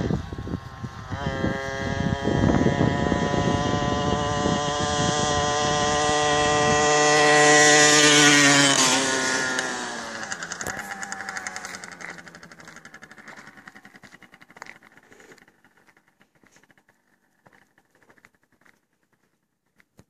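Balkan 50 moped's two-stroke single-cylinder engine running flat out at top speed, a steady high-pitched drone growing louder as it approaches. It drops in pitch as it passes about nine seconds in, then fades away into the distance.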